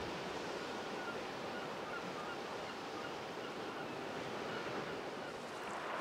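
Sea waves washing on the shore in a steady, even rush.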